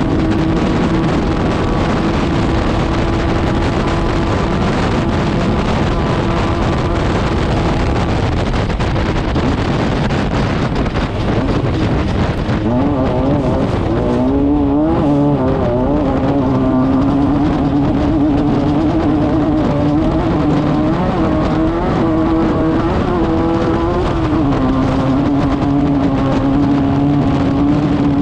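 Class 5/1600 off-road race car's air-cooled VW 1600 flat-four running hard at steady high revs under a heavy rush of noise. About halfway through the revs waver and dip, then hold steady at a slightly lower pitch.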